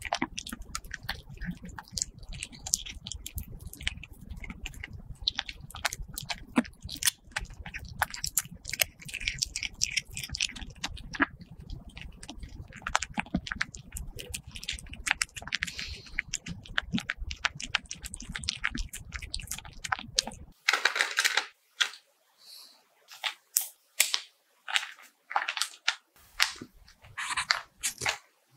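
A kitten eating close to the microphone: a fast, dense run of small wet chewing and lapping clicks. About 20 seconds in this gives way to scattered short clicks and rustles with quiet gaps between them.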